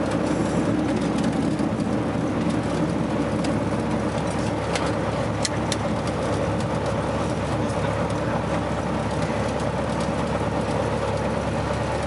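Cessna 150's Continental O-200 four-cylinder engine running steadily, heard from inside the cockpit as a constant drone. A few faint clicks come about five to six seconds in.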